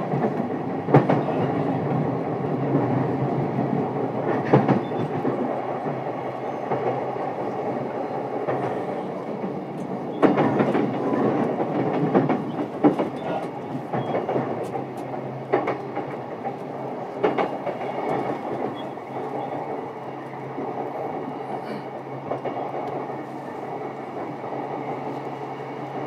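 JR East E233-7000 series electric commuter train running, heard from inside a motor car: a steady rumble of wheels on rail, with sharp knocks from the wheels over the track every few seconds. The sound grows a little quieter in the second half.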